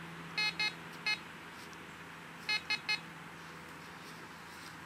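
Fisher F44 metal detector beeping as a handful of soil is passed over its search coil: three short beeps in the first second and three more about two and a half seconds in. The beeps show that the small metal target is in the handful of soil.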